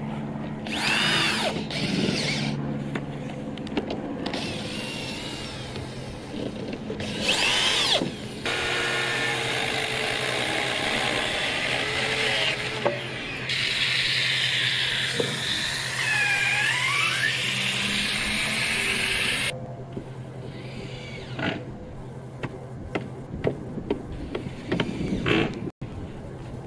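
Cordless drills driving screws into structural insulated panels, their motors whirring up and down in short bursts. A longer stretch of steady noise comes in the middle, and scattered clicks and knocks of work follow near the end, over a steady low hum.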